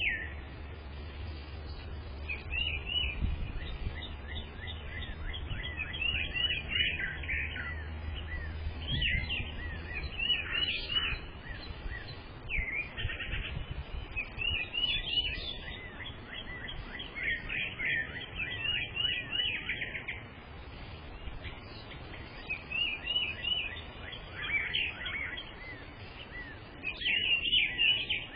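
Several small songbirds chirping and singing in quick repeated phrases, coming in clusters every few seconds. A low steady rumble underlies the first ten seconds or so, then fades out.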